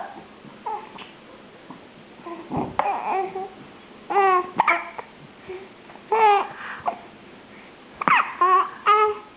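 A baby hiccupping, each hic coming with a short, high-pitched squeak or coo, in bouts every couple of seconds.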